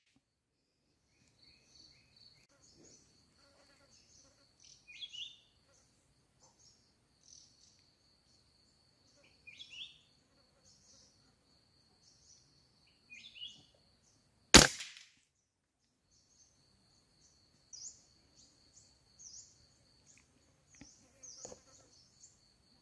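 A single sharp rifle shot about fourteen and a half seconds in. Around it an insect trills steadily at a high pitch, dropping out for a moment after the shot. Birds give short chirps, three before the shot and several more near the end.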